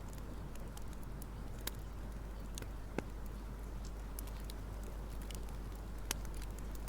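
Scattered light clicks and ticks over a steady low hum, with two sharper clicks about three and six seconds in.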